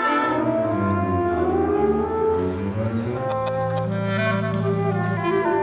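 Orchestra playing slow sustained chords, bowed strings with woodwinds. Low held notes come in about halfway.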